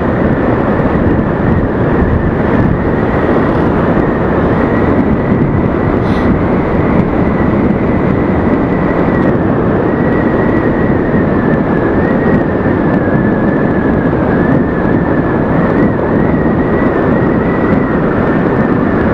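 Aprilia SXR 160 scooter riding at a steady speed: a constant rush of wind and road noise with the single-cylinder engine running underneath, and a thin steady whine through it.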